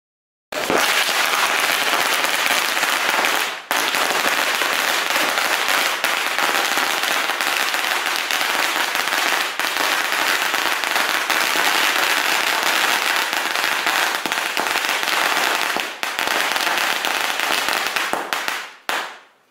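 Firecrackers going off in a long, rapid, unbroken run of crackling pops, which dies away near the end.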